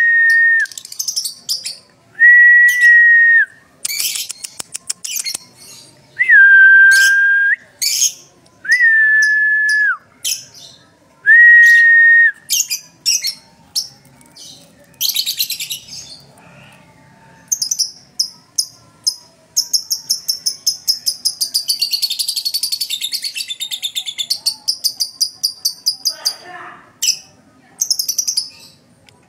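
Caged lovebird singing with sharp, high chirps. It then breaks into a long, fast chattering run of about eight seconds, the long 'ngekek' that lovebird keepers prize. In the first half, five long, steady whistle tones alternate with the chirps.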